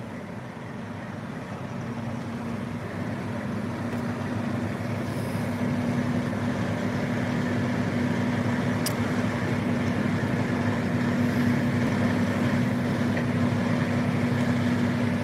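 Diesel semi-truck engine running, a steady low hum that grows louder over the first several seconds and then holds level. A single faint click a little past the middle.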